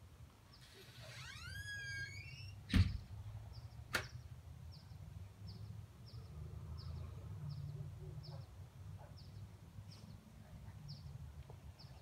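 Front door swinging shut: a brief squeaking sweep, then a loud slam about three seconds in and a sharp click a second later. Faint high ticking repeats about twice a second throughout.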